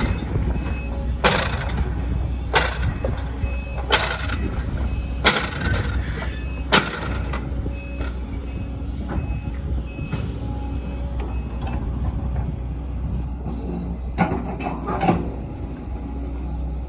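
Hydraulic excavator's diesel engine running with a steady low rumble. Sharp clanks or knocks come about every second and a third for the first seven seconds, and a few more come near the end.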